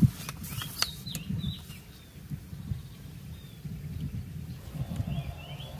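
Small birds chirping in short, quick bursts about a second in and again near the end, over a low, uneven rumble on the microphone, with a couple of sharp clicks near the start.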